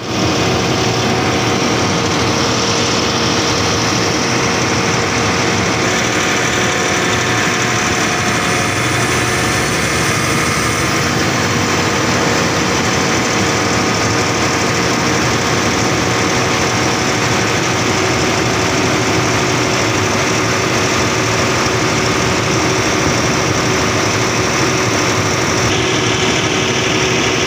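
Volvo diesel engine of a 600 kVA generator set running steadily under electrical load, as its load current per phase climbs to around 210 A during a load test.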